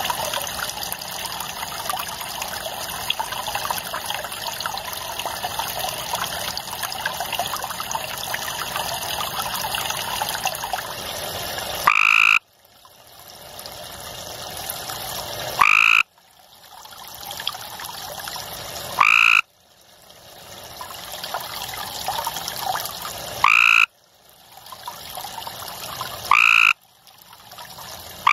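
Gray treefrog calling: short trilled calls, each under half a second, repeated every three to four seconds from about twelve seconds in. Before the first call, only a steady trickling-water hiss.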